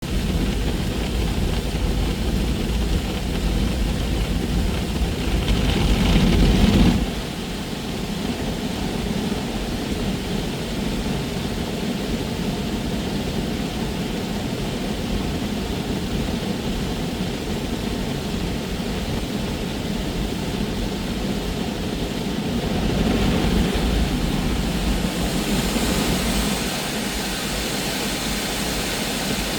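Automatic car wash running: a steady wash of machine and spray noise. A heavy low rumble cuts off suddenly about seven seconds in, the noise swells again later, and a brighter hiss comes in near the end.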